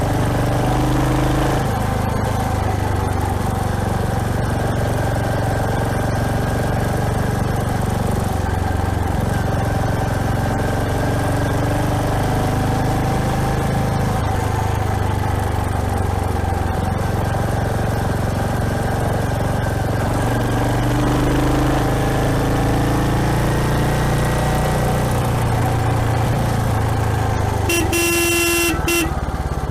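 Royal Enfield Hunter 350's single-cylinder engine running under way, its pitch rising and falling with throttle and speed. A vehicle horn sounds for about a second near the end.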